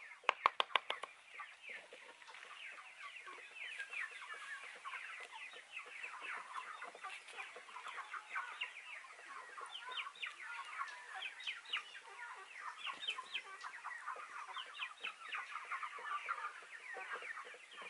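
A quick run of knife chops on a wooden chopping block in the first second, then a steady, busy chatter of chickens clucking and peeping.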